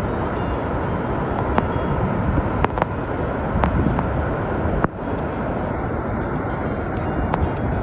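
Wapta Falls, a large, heavy waterfall, roaring steadily in a dense wash of falling water, with a few faint sharp ticks over it and a brief dip about five seconds in.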